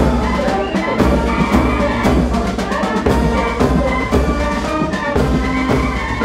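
Brass-band march music with trumpets, trombones and drums, playing steadily.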